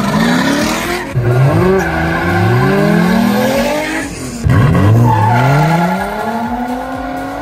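Drift cars launching in pairs from a standing start, engines revving hard and climbing in pitch through upshifts, with tyres squealing. The sound breaks off and starts afresh about a second in and again a little past the middle, as one launch gives way to the next.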